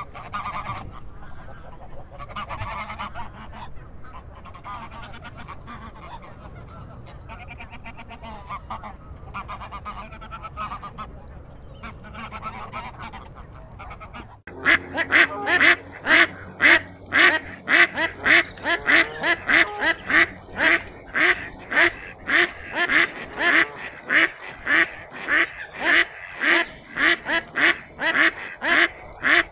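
A flock of waterfowl calling in a dense, overlapping chatter. About halfway through it cuts abruptly to a single duck quacking loudly and steadily, about twice a second.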